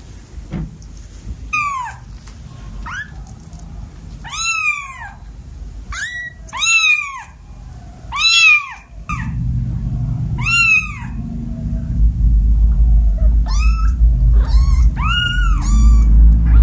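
Young kittens mewing: about a dozen short, high-pitched calls, each rising and falling in pitch, coming in quick runs. A low rumbling noise builds from about halfway and is loud near the end.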